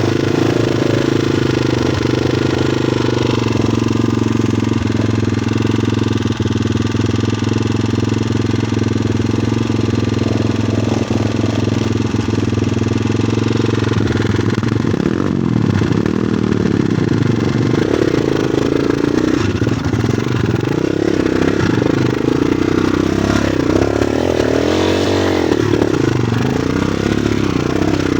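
Motorcycle engine running as the bike rides, with a steady note that dips and rises with the throttle about halfway through and again near the end.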